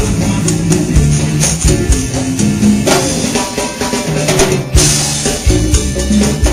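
A live band playing rock music, with the drum kit and hand percussion such as tambourine prominent over bass and other instruments. A cymbal wash swells about halfway through and cuts off near the end.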